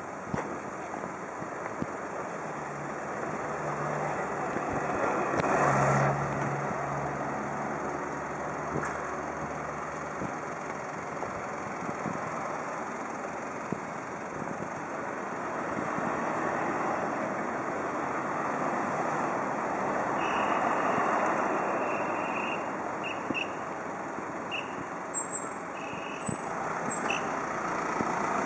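Road traffic at a crossroads: cars and trucks running and passing, their noise swelling and fading, loudest about six seconds in with a low engine hum. Several short high-pitched tones sound in the last third.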